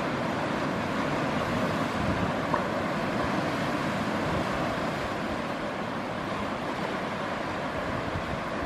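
Steady wash of sea surf on a rocky shore.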